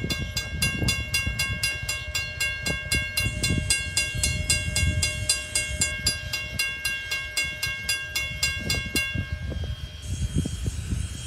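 Canadian National 89, a 2-6-0 steam locomotive, approaching under power with a low rumbling exhaust. A bell rings steadily at about three to four strokes a second and stops about nine seconds in. A high steam hiss starts near the end.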